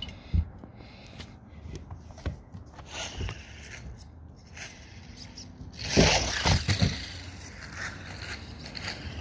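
A phone being set down and shifted on a plastic mat, with knocks and scrapes, then a louder patch of rough scraping and knocks about six seconds in.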